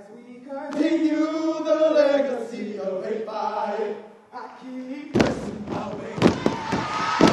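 Male voices chanting a long, drawn-out call into a microphone. About five seconds in, a crowd suddenly bursts into cheering as a step routine starts, with sharp stomps on the stage.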